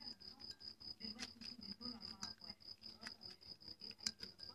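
A spoon stirring a thick paste in a small glass bowl, clinking against the glass a few times, loudest near the end. Under it, a cricket chirps steadily and rapidly.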